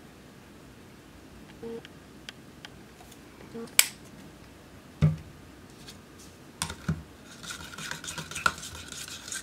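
A few light clicks and a sharp click, then a dull knock. From about seven seconds in, an old butter knife stirs acrylic paint in a plastic cup, scraping fast and continuously against the cup.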